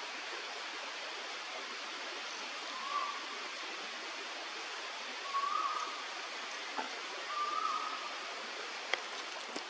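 Three short whistled bird notes, spaced about two seconds apart, over a steady hiss of background noise, with a couple of faint ticks near the end.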